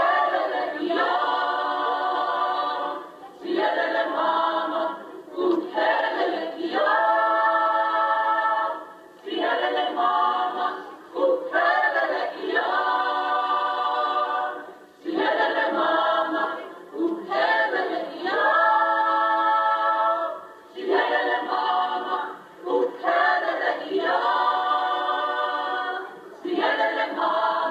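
A choir of women singing a cappella, in phrases of long held notes with short breaks between them. The sound is narrow and thin, as if played back through a television speaker.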